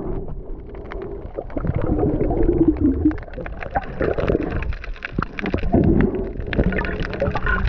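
Muffled underwater sound picked up by a camera held below the surface: a low rumble of moving water with many small clicks and knocks.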